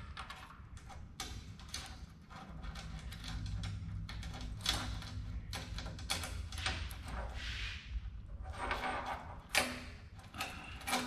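Scattered clicks, light knocks and scraping of metal parts being handled while pins are fitted into an old pipe vise, with a low hum for a few seconds in the middle.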